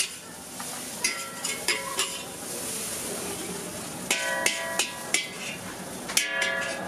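A metal spatula clanks and scrapes against a steel wok while noodles are stir-fried, and the wok rings after each strike. The strikes come about one second in, in a quick run around four to five seconds in, and again near the end, with a frying hiss in the stretch between.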